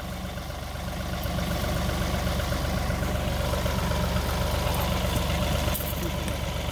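John Deere compact tractor's diesel engine idling steadily, a little louder from about a second in.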